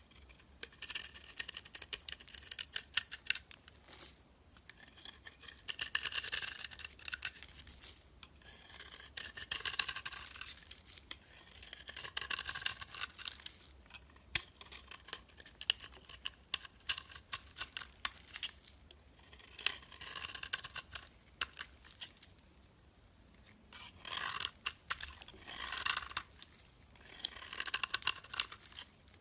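Crisp crunching and crackling of a brittle material worked by hand, close to the microphone. It comes in about seven strokes of around two seconds each, with short pauses between them.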